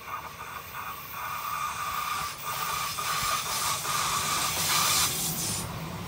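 Südostbahn Stadler FLIRT electric multiple unit passing close by: the rumble and hiss of its wheels on the rails grow louder, peak about five seconds in, then ease as the last cars go by. A steady high tone runs underneath and stops at the peak.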